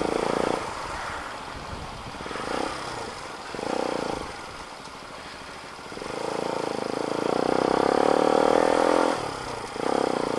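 Motorcycle engine running through a new muffler while riding: the exhaust note eases off half a second in, swells briefly twice, then builds steadily to its loudest, dips for a moment near the end and picks up again.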